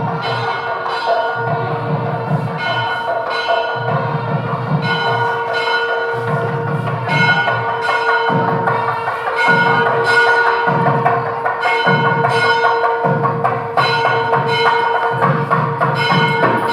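Background music: bell-like strikes over a sustained drone, with a steady beat.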